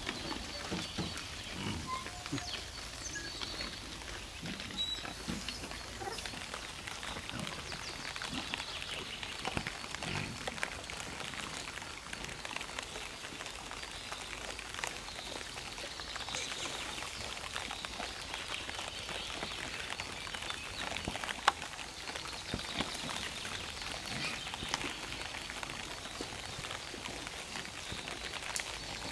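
Wild boars feeding on scattered maize: occasional low grunts, mostly in the first several seconds, over a steady patter of small clicks and rustling.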